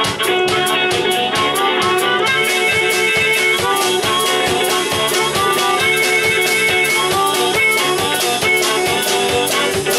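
Live blues band playing an instrumental passage: electric guitar over a drum kit keeping a steady beat.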